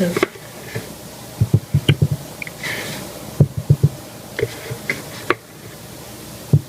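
Thick cold process soap batter glopping into a mold, with irregular soft thuds and short knocks of a utensil against the container and a few light clicks.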